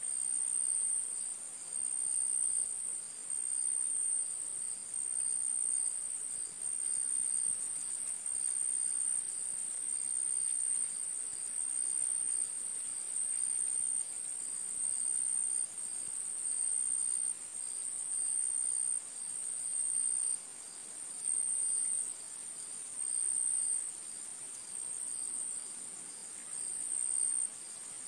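Insects chirping: a high, steady trill that swells and fades about every second and a half.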